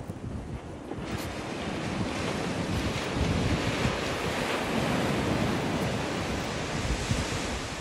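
Surf washing on a beach, swelling about a second in and fading near the end, with wind buffeting the microphone.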